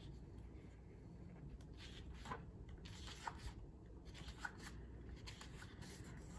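Faint rustling of a thin sheet of patterned scrapbook paper being lifted and turned over in a paper pad, with a few light clicks and crinkles as the sheet flexes.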